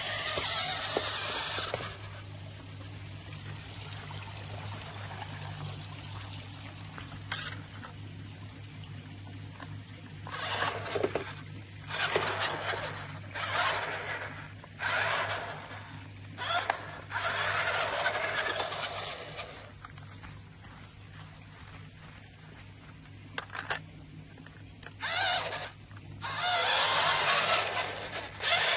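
Vintage Tomy/Taiyo Buggy Monster six-wheel-drive RC car's electric drive motors and gearboxes whirring in short bursts of a second or two, starting and stopping as it is driven over grass, with a longer run near the end.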